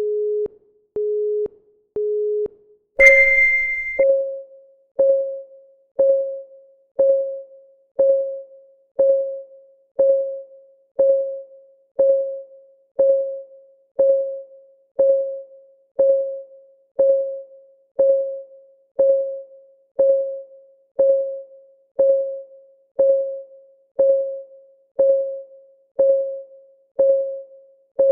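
Countdown timer's synthetic sounds: three short steady beeps a second apart, then a louder, higher start tone about three seconds in, followed by an electronic clock tick, pitched and quickly fading, once every second.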